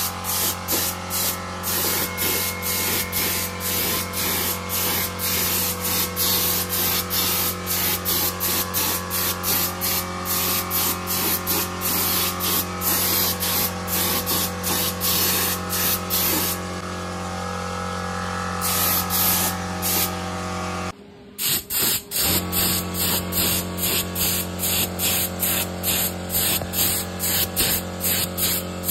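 Compressed-air spray gun spraying paint in short, repeated bursts of hiss, about two a second, over a steady low hum. The bursts break off briefly about three-quarters of the way through, then resume.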